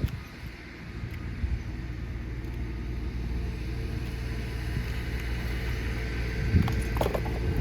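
A steady low rumble that slowly grows louder, with a few light knocks near the end.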